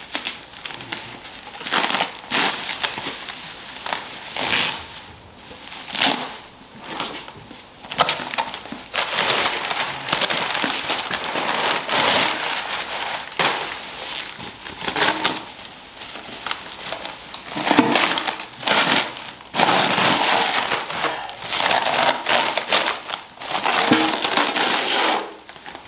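Plastic bubble wrap and brown paper packing crinkling and rustling in irregular bursts as they are pulled off and crumpled away from a boxed part.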